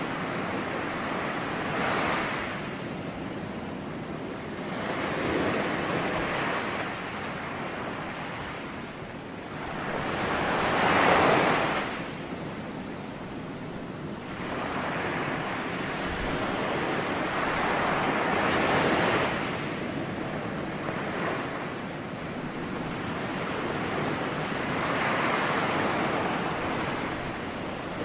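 Ocean waves breaking and washing on a shore, the surf swelling and falling back every few seconds, with one louder break about eleven seconds in.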